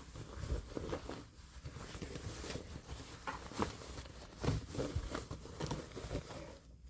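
Denim fabric being handled during repair work: irregular rustling with soft knocks, louder twice in the middle.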